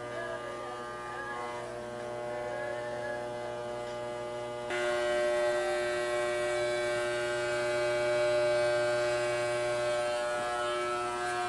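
Corded electric hair clippers with a guard comb buzzing steadily as they cut hair at the side and nape of the head. The buzz gets suddenly louder and brighter about five seconds in.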